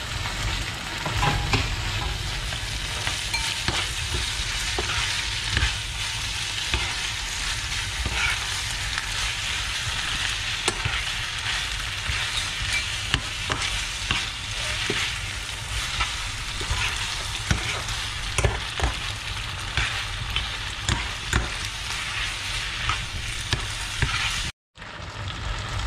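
Thick noodles in black bean sauce sizzling in a frying pan while a metal spoon stirs and tosses them, with frequent clicks and scrapes of the spoon against the pan. The sound drops out briefly near the end.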